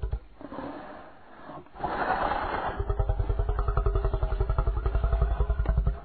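Carcharodontosaurus sound effect: a deep growl that starts suddenly, then swells about two seconds in into a loud, rapidly pulsing low rumble with a throaty tone on top, stopping just before the end.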